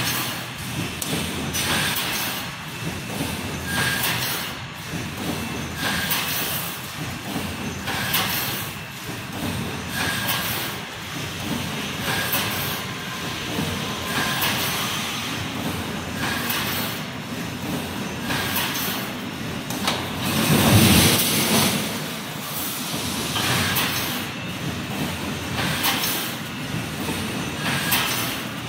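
Automatic 3-6mm wire mesh welding machine running, with a clattering stroke about every two seconds as it welds and steps the mesh forward. There is one louder, deeper clunk about three-quarters of the way through.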